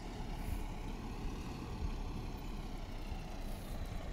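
4WD ute's engine running steadily at low revs as it is eased through a slow turn on soft sand.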